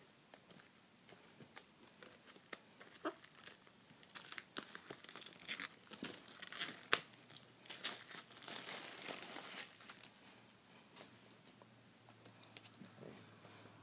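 Plastic wrapping being torn and peeled off a Blu-ray steelbook case: irregular crinkling and tearing with small clicks, busiest in the middle stretch.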